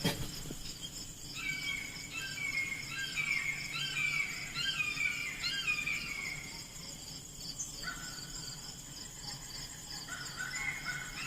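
Insects trilling steadily in high, continuous tones while a bird sings repeated short, falling chirp phrases, pausing for a few seconds before resuming near the end. A sharp click sounds right at the start.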